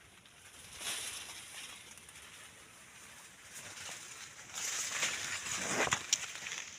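Rustling and crunching of maize leaves and stalks being pushed through or handled, getting louder about two thirds of the way in with a few sharp crackles.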